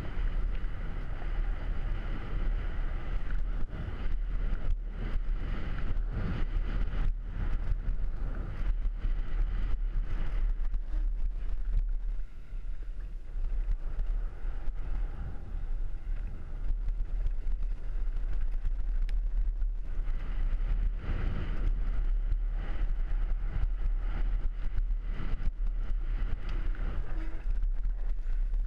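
Wind buffeting the microphone of a helmet-mounted camera on a fast mountain-bike descent, over the rumble of tyres on a loose dirt trail and frequent knocks and rattles from the bike over bumps. It is briefly quieter about twelve seconds in.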